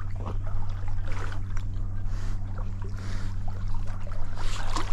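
Water sloshing and trickling with scattered small splashes, over a steady low hum.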